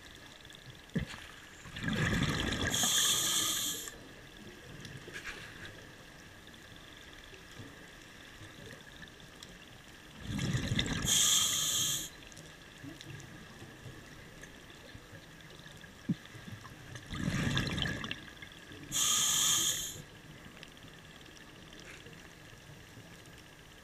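Scuba diver breathing through a regulator. There are three breaths about seven seconds apart, each a rush of exhaled bubbles followed by the high hiss of the demand valve on the inhale, over a steady underwater hiss.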